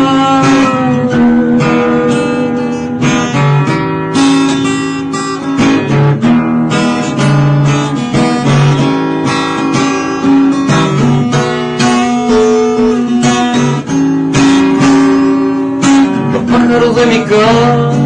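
Acoustic guitar strumming an instrumental interlude between verses of a song. A man's singing voice comes back in near the end.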